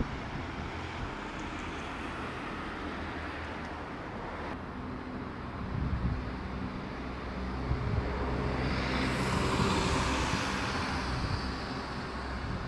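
Town street traffic: a low engine hum and road noise, with a car driving past that is loudest about nine to ten seconds in.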